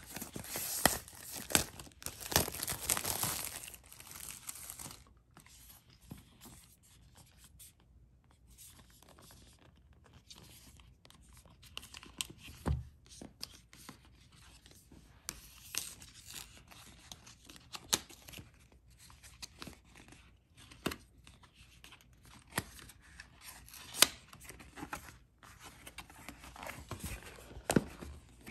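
Clear plastic wrap being torn and peeled off a cardboard box, loud for the first few seconds, followed by intermittent rustling, scraping and sharp taps of hands handling and opening the cardboard box.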